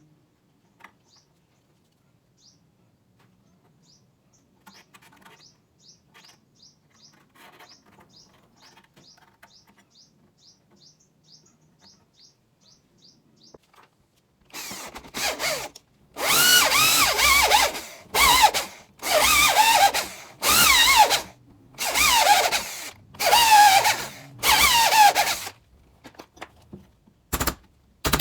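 Electric drill boring into wood in about six loud bursts of one to two seconds each, its pitch wavering as it bites. Before that, faint light clicks and short chirps; a few sharp knocks near the end.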